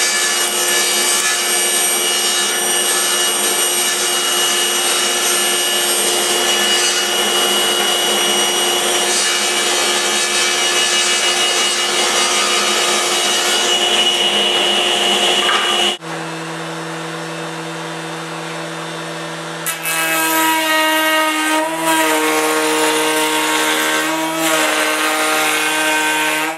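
Power tool machining wood, a steady mechanical whine with cutting noise. About two-thirds of the way through it cuts off abruptly to a quieter running machine whose pitch shifts a few times.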